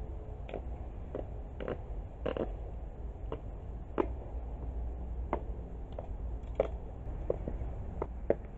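High-heeled shoes walking on a hard floor: a run of sharp heel clicks, one or two a second, over a low steady hum.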